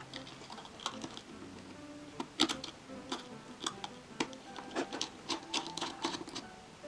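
Irregular small clicks and taps from small tools and parts being worked on an opened smartphone, several a second, with the loudest about two and a half seconds in. Quiet solo piano music plays underneath.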